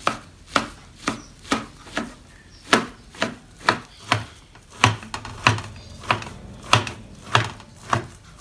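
A kitchen knife knocks against a plastic cutting board while slicing a rolled thin omelette into strips. The cuts come in a steady rhythm of about two a second.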